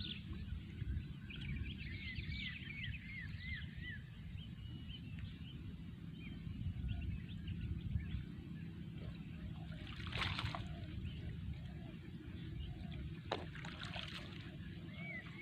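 Outdoor ambience with a steady low rumble and a bird calling in quick series of short chirps, once early on and again near the end. A brief noisy burst comes about ten seconds in, and a sharper click a few seconds later.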